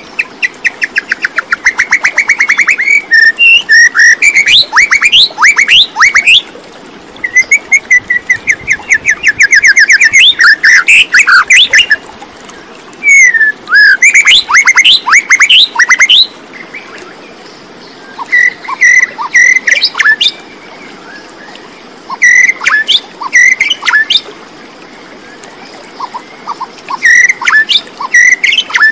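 A bird singing close by, in bursts of rapid trills and quick chirping sweeps separated by short pauses.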